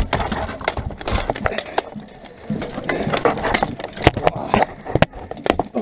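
Plate armour and weapons clattering in close hand-to-hand fighting: a fast, irregular run of sharp metallic knocks and clanks, easing briefly about two seconds in.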